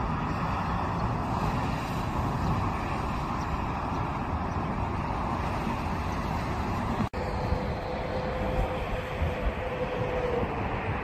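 Jet airliner engines rumbling as an Airbus A321 comes in low to land. About seven seconds in the sound cuts off abruptly, and a more distant Boeing 737-800 on approach follows, its engines giving a steady whine over the rumble.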